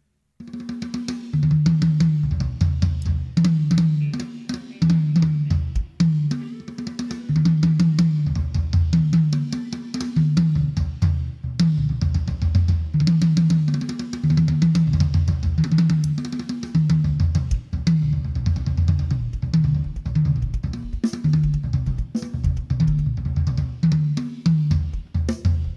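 Drum kit played through a loud PA system during a sound check: a steady groove of deep, ringing bass-drum hits with snare strokes and cymbal wash over it. It starts after a moment's pause.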